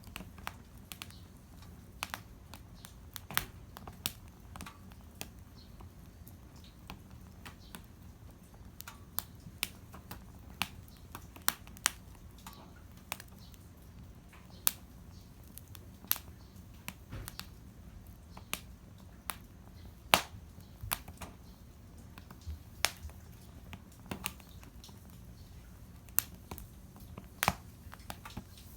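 Small wood fire crackling, with irregular sharp snaps, a few a second, over a faint steady background.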